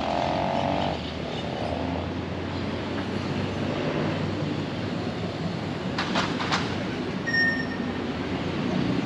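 Street ambience with steady traffic noise from passing cars. A couple of sharp clicks come about six seconds in, and a short high beep a little later.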